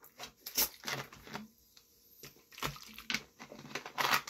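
A few short, scattered rustling and clicking handling noises, with quiet in between.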